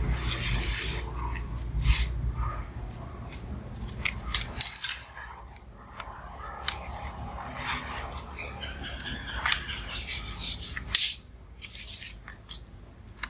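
Pencil scratching and rubbing across paper in short, irregular strokes as pattern lines are drawn.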